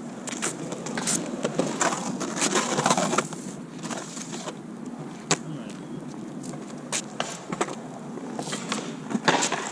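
Skateboard wheels rolling over the skatepark surface, with sharp clacks and knocks of the board hitting the ground; the loudest knock comes near the end.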